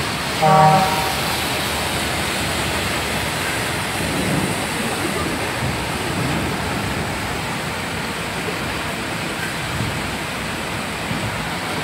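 Steady rushing of floodwater pouring through a flooded street, with water gushing up out of a drain in the road. A brief, loud pitched sound stands out about half a second in.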